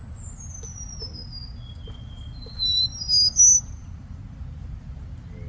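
Cuban bullfinch singing: a long thin whistle sliding down from very high, a short lower note, then a run of loud, very high piercing notes about halfway through. A steady low rumble sits underneath.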